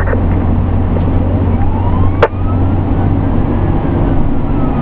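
Steady low drone of a Pierce Enforcer fire engine's diesel and road noise inside the cab, with a faint siren wail rising and then falling in pitch. A single sharp click sounds a little past two seconds in.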